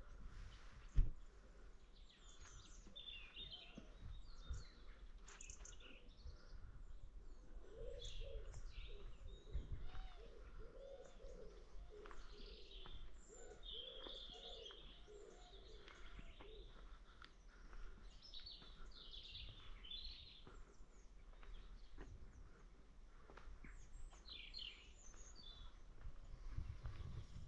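Small birds chirping and twittering on and off, with a pigeon cooing in a run of repeated low notes through the middle. There is one sharp knock about a second in.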